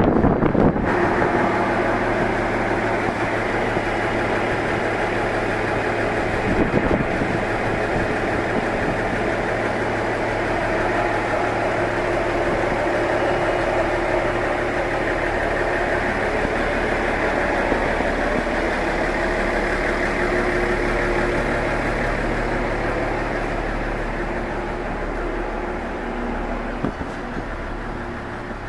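Diesel railcar engine idling steadily, a low hum with a busy rattle above it, growing quieter near the end.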